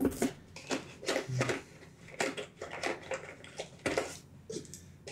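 Irregular rustling and light clicks from hands handling game cards and plastic baggies of board-game pieces.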